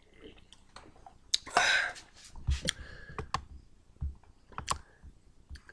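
Scattered sharp clicks of a computer mouse at a desk, with a few soft low knocks and one short breathy noise about one and a half seconds in.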